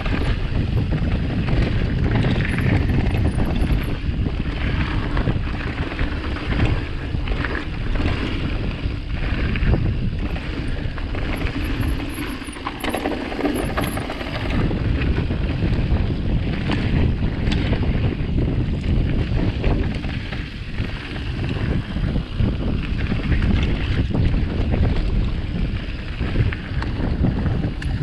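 Mountain bike descending a dirt enduro trail at speed: steady wind noise on the microphone mixed with tyre noise and frequent clattering knocks from the bike over rough ground, easing off briefly about twelve seconds in.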